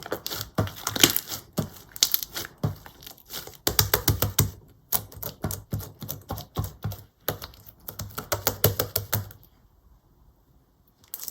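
Slime being squeezed and pressed by hand, its trapped air pockets popping in quick runs of sharp clicks, then a pause of about two seconds near the end.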